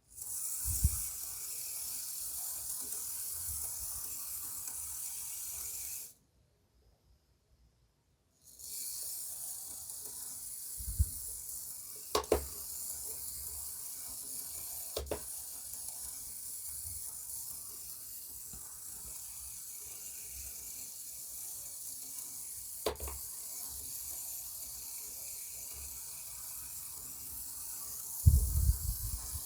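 A tiny T-gauge model train running on its track: a steady high hiss from its miniature motor and wheels, with a few sharp clicks and soft low thumps. The hiss cuts out for about two seconds early on, then resumes.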